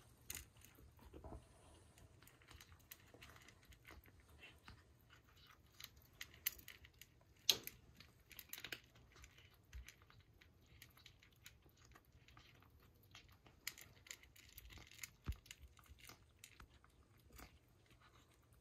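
Kittens eating from a food dish: faint, irregular small clicks of chewing, with a few sharper clicks, the loudest about seven and a half seconds in.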